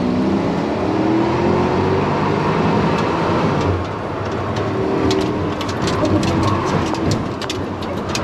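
Engine of the tuned first-generation Porsche Cayenne heard from inside the cabin under acceleration, its pitch rising over the first two seconds and falling back near the middle, over heavy road and tyre noise. A run of sharp ticks and rattles comes in the second half.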